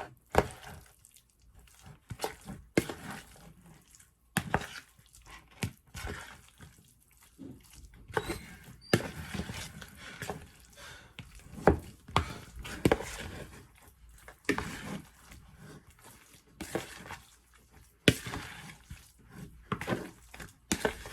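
A utensil mixing thick, chunky mashed potato filling with broccoli in a bowl: irregular knocks and scrapes against the bowl, with soft wet squishing of the mash.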